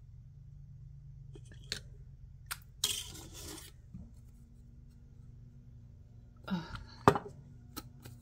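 Small clicks, taps and a brief scrape from handling glass nail polish bottles and a plastic nail swatch wheel on a wooden tray, over a low steady hum. The loudest is a single sharp click about seven seconds in.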